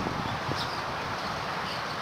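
Steady outdoor hiss with a few faint, short high chirps.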